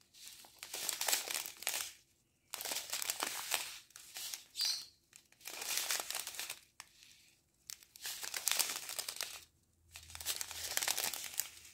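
Small clear plastic bags of diamond-painting rhinestones crinkling as they are handled one after another, in repeated bursts of a second or so with short pauses between.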